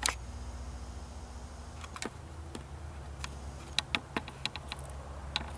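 Handling noise from a camcorder as its lens zooms in: a faint motor hum for about a second and a half near the start, then a string of light clicks and taps on the camera body, several in quick succession about four seconds in.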